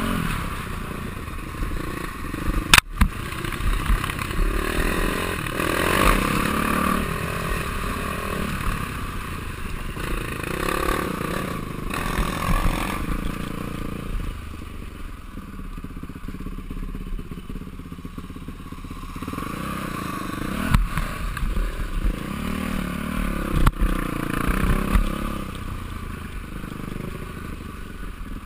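Yamaha YZ426F four-stroke single-cylinder dirt bike engine revving up and down under riding, with a quieter backed-off stretch about halfway through. Several sharp knocks cut in over the engine.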